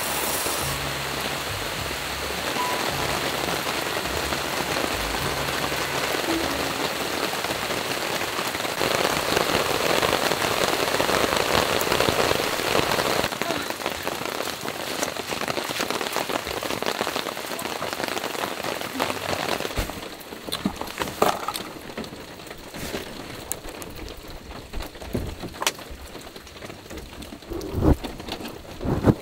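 Steady rain falling on a camping tarp, heavier about a third of the way in and softer in the last third. A few knocks sound near the end, and soft background music fades out in the first few seconds.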